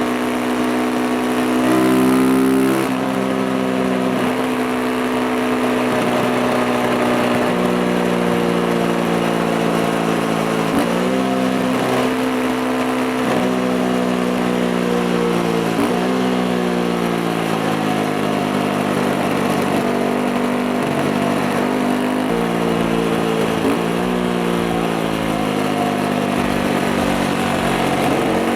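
Beta RR 125 motorcycle engine running at steady revs. Its pitch jumps several times as the rider changes gear, and it is loudest and highest about two seconds in.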